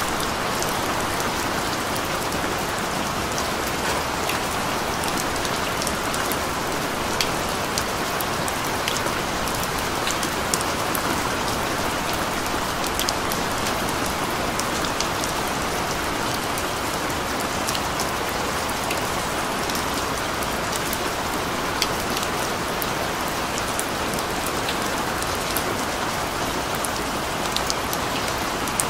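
Steady rain falling: a constant, even hiss with scattered sharp ticks of individual drops over it.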